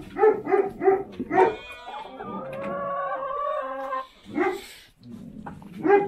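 Dog barking in quick yaps, about three a second. A long whining cry of about two seconds follows, then a single bark, and more quick barks near the end.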